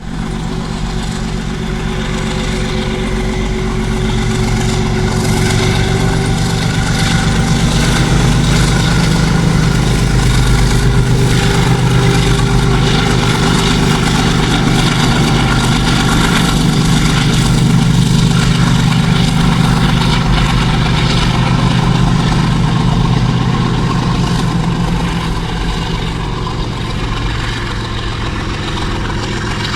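WDG4G diesel-electric freight locomotive's V12 diesel engine humming steadily and powerfully. The sound grows a little louder towards the middle and eases slightly near the end.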